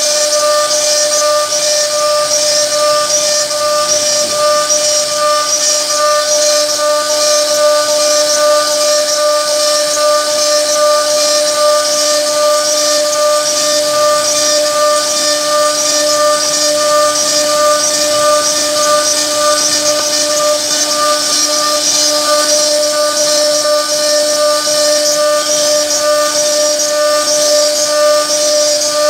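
CNC router spindle running with a steady whine as its bit carves a wooden door panel, with a hiss from the cutting over it.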